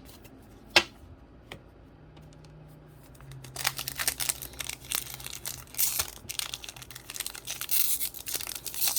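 A single sharp click about a second in, then a Pokémon card booster pack's foil wrapper crinkling and tearing open, starting a little after three seconds in and going on in quick, uneven crackles.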